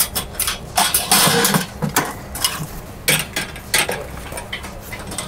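Steel wire racks and metal poles clinking and rattling against one another in irregular knocks as they are slid into a fabric storage bag.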